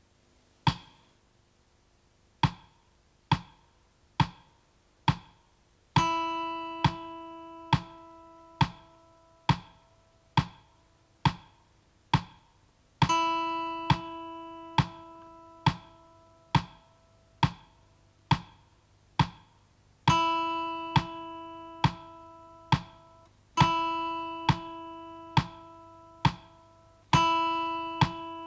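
Metronome ticking steadily, a little under once a second; about six seconds in, an acoustic guitar's open high E string starts being picked with a plectrum, each note left to ring for several beats as long held notes in a rhythm exercise.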